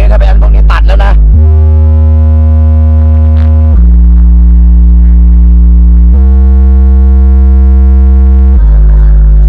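Deep sustained bass notes played loud through subwoofers in ported cabinets, changing pitch about every two and a half seconds, as a bass test of the woofer cones' movement on a mini amplifier.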